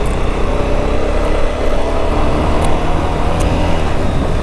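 Motorcycle engine running steadily while riding on a rough, broken mountain road, with a low rumble underneath and a couple of brief sharp ticks in the middle.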